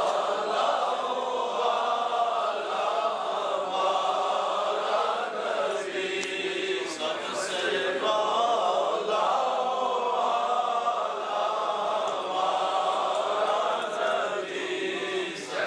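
A group of men chanting together in unison, a continuous religious recitation by the congregation.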